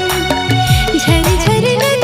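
Background music, a folk-style Indian song: a wavering vocal melody over a steady beat of low, pitch-dropping drum strikes.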